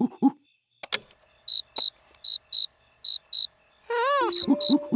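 A recording of a cricket chirping, played back on a handheld recorder: a click about a second in, then short, high chirps in pairs, roughly one pair every second. Near the end a short, gliding voice joins in over the chirps.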